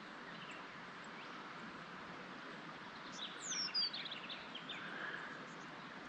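Low steady rush of a small stream flowing. About three seconds in, a bird calls once: a quick falling whistle followed by a string of short chirps.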